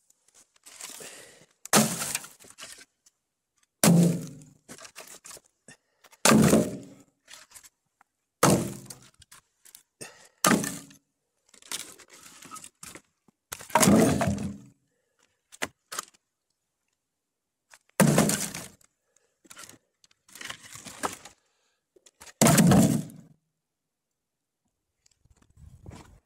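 Split kindling and sticks being laid into a rusty steel fire pit over birch bark: about ten sharp wooden knocks and cracks, roughly two seconds apart, with softer rustling of bark between them.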